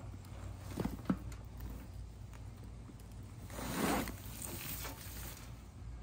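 A fabric grow bag full of potting soil is tipped over into a plastic wheelbarrow. There are two light knocks about a second in, then a rustling rush near the middle as the soil and mulch slide out.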